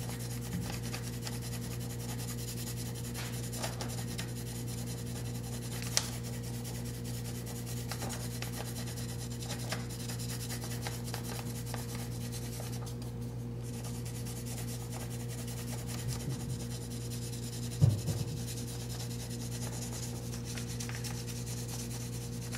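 Pencil lead scribbled back and forth across a sheet of paper held against the stamped metal frame, taking a rubbing of a VIN: a steady dry scratching. Under it runs a steady low hum, with a sharp click about six seconds in and a louder knock about three-quarters of the way through.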